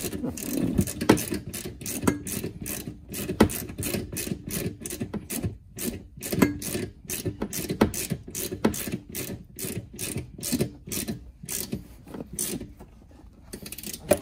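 Socket ratchet clicking as it is swung back and forth to snug the solenoid's mounting bolts. The clicks come quickly, a few a second, in runs with a brief pause about halfway and another near the end.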